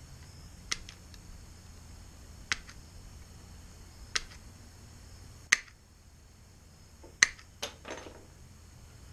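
Tin snips cutting black hexagonal grille mesh: seven sharp snips, the first four a second or two apart, the last three in quick succession near the end.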